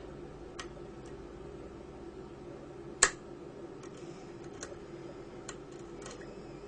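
Faint metallic ticks of a half-diamond pick working the telescopic pins of a Mul-T-Lock cylinder, with one sharper click about three seconds in.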